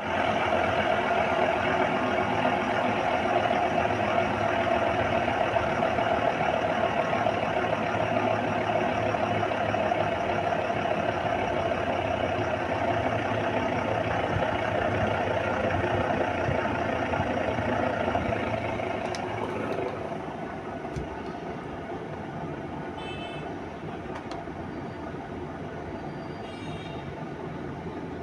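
Haier top-loading fully automatic washing machine running with a loud, steady mechanical noise, the sound problem the machine is being repaired for. About two-thirds of the way through it drops noticeably in level and runs on more quietly, with a few faint clicks.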